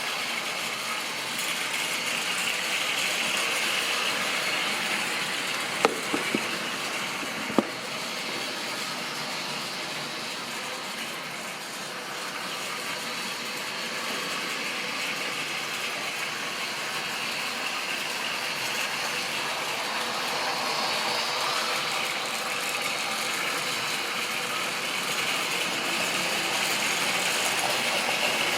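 Model railway train running on the track: a steady rattle of wheels on rails and a whirring motor, growing louder and softer as it goes around the layout. A few sharp clicks sound about a quarter of the way in.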